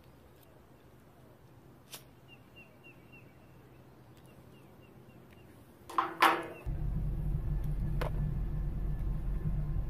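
Quiet outdoor background with a few faint, short bird chirps and a soft click. About six seconds in there is a brief loud sound, then a steady low rumble inside a car.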